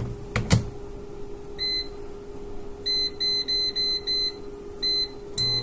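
Britânia air fryer oven's door shut with two sharp knocks, then its touch panel beeping at each button press as the timer is set: one beep, a quick run of five, then two more. With the last beep its fan starts with a low steady hum.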